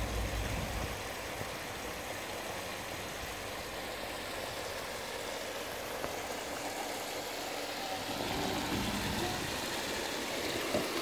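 Water falling in sheets from stainless steel spillway outlets in a raised pond wall and splashing into the shallow channel below, a steady rushing. A low rumble underlies it in the first second.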